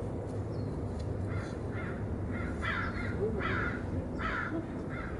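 A crow cawing, about seven calls in quick succession starting about a second in, over a steady low background rumble.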